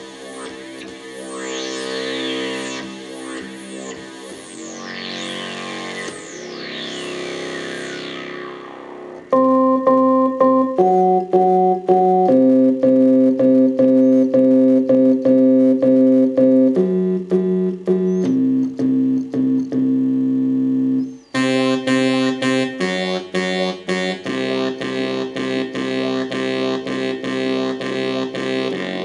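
Korg Kronos synthesizer played live on a synth bass preset. For the first nine seconds, repeated falling pitch sweeps ride over held notes; then it jumps louder into held chords that change every second or two, pulsing in a fast rhythm, and after a brief dropout near twenty-one seconds the sound turns brighter and busier.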